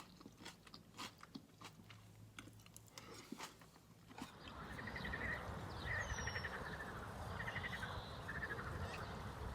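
Close-up chewing and crunching of food for the first few seconds. About four seconds in it gives way to frogs croaking in short, rapid rattling trains over a steady outdoor hiss.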